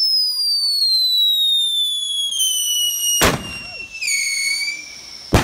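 Aerial firework shells fired from mortar tubes. A loud whistle falls slowly in pitch for about three seconds and ends in a sharp bang. A second whistle starts about a second later and ends in another bang near the end.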